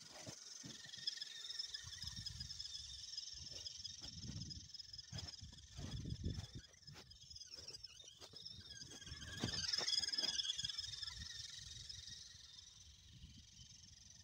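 Electric RC crawler's motor and geartrain whining at a high pitch through the whole stretch, swelling and loudest about ten seconds in. A run of crunches and low rumbles comes in the middle.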